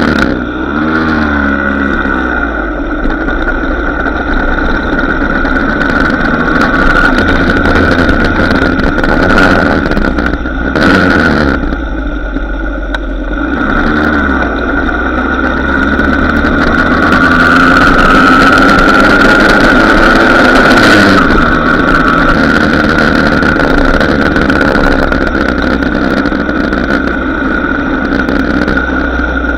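Small two-stroke moped and motorcycle engines running at road speed, heard on board, their pitch rising and falling several times with throttle and gear changes, over heavy wind rumble on the microphone.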